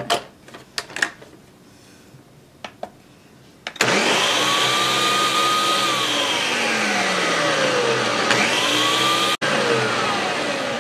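Ninja countertop blender: a few sharp clicks as the lid is fitted and latched, then about four seconds in the motor starts abruptly and runs loud, blending a milky mixture. Its whine sags in pitch, climbs back and sags again, with a momentary break near the end.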